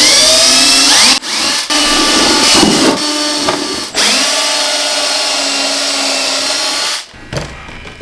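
Power drill running in several short bursts, its pitch rising as each one spins up, then a longer run of about three seconds that stops near the end.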